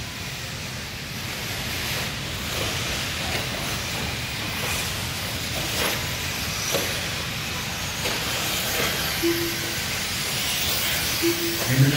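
Radio-controlled truggies running on an indoor dirt track: a steady hiss of motors and tyres echoing through a large hall, with a few light ticks.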